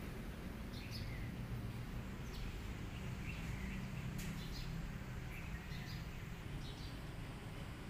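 Small birds chirping now and then, short high calls, over a steady low rumble of outdoor background noise.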